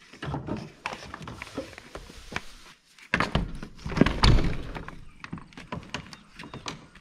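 Knocks and thunks of things being handled and moved about, with a heavier run of thuds about three to four seconds in.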